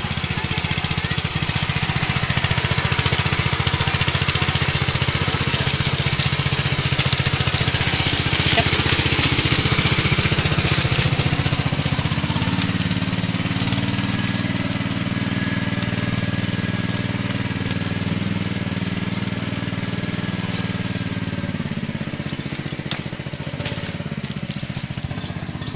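Small engine of a motorized hauling cart running steadily while it carries a heavy load of oil palm fruit bunches.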